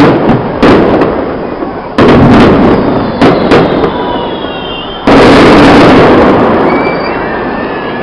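Aerial fireworks shells bursting in quick succession in a festival finale: several sharp bangs, then about five seconds in a very loud, drawn-out blast that slowly dies away. Thin falling whistles come and go between the bursts.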